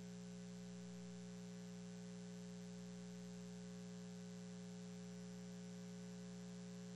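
Faint, steady electrical mains hum with a buzzy stack of even overtones, unchanging throughout.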